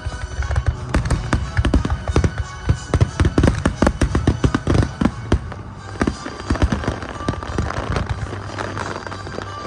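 Fireworks bursting in a rapid barrage, a dense, irregular run of sharp bangs and crackles with no pause.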